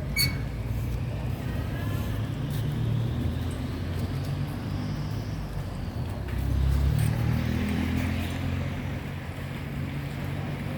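Steady low rumble of motor vehicles, swelling a little about halfway through, with a short click about a quarter second in.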